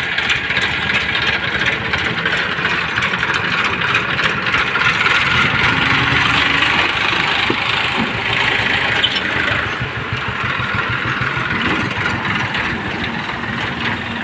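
Vehicle engines running steadily, a pulsing low rumble under a constant hiss.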